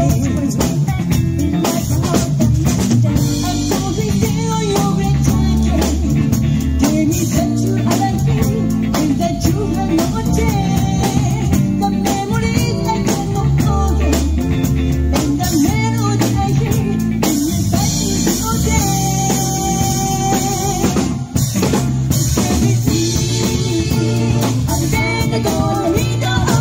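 Live band playing a pop song: electric guitars, bass and drum kit, with a singer's voice. The band briefly drops out about three quarters of the way through, then comes back in.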